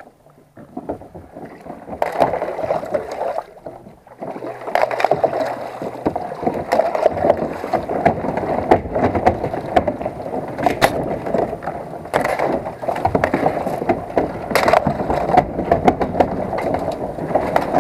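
Canoe pushing through thin ice: the ice crackles, crunches and scrapes along the hull in a dense run of small cracks. It is quieter for the first couple of seconds and dips again about four seconds in.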